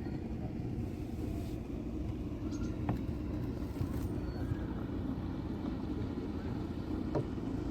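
A small motor boat's engine running steadily with a low rumble, with a couple of faint knocks.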